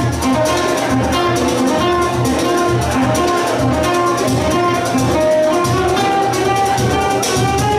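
Live acoustic jazz from two acoustic guitars and a violin, the violin playing held melody notes over a steady strummed guitar rhythm.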